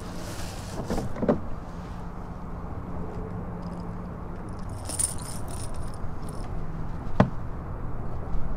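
Clicks, scrapes and rattles of pliers and a rattling crankbait (Rat-L-Trap) lure being worked out of a white bass's mouth, with a sharp click about a second in and another near the end, over a steady low hum.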